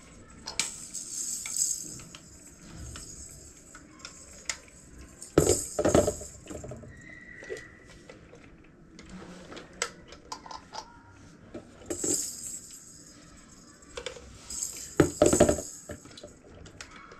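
Parts of a gift being handled and fitted together during assembly: irregular clicks, clatter and rustling, with two louder bouts of clattering knocks about a third of the way in and again near the end.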